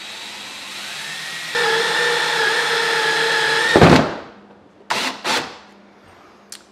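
Cordless drill driving a 1.5-inch hole saw through a kayak's plastic deck. The motor spins up, then runs steadily under load for about two seconds and ends in a loud grinding burst as the saw breaks through, about four seconds in. Two short knocks follow about a second later.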